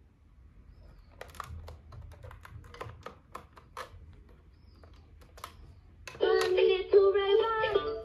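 Plastic clicks and taps as buttons on an electronic toy robot are pressed, then about six seconds in the toy starts playing a much louder electronic tune with a synthesized singing voice.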